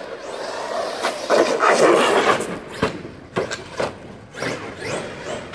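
Brushless electric RC monster truck being driven hard: the motor whine rises and falls with bursts of throttle, along with tyre scrabble and a few sharp knocks around the middle.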